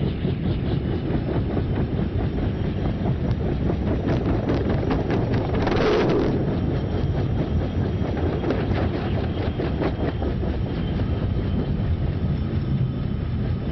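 Small piston helicopter's rotor chopping fast and evenly over its running engine as it lifts off and hovers low. About six seconds in, as it swings right past, a louder rush of noise swells briefly.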